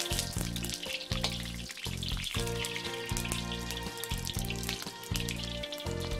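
Halved long purple eggplants sizzling and crackling as they fry in hot oil in a wok, with background music underneath.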